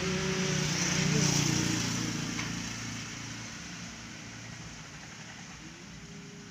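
Small air compressor's motor running with a steady hum, growing fainter over the first few seconds.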